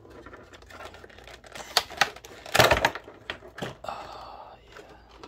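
Clear plastic blister tray of a Pokémon TCG collection box being handled and pried at: a run of sharp plastic clicks and crackles, loudest a little past halfway.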